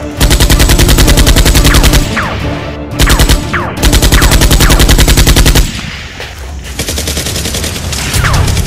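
Rapid automatic-gunfire sound effect in three long bursts, each at roughly fourteen shots a second, with short falling whistles mixed in. The firing stops a little over halfway through, leaving a quieter background.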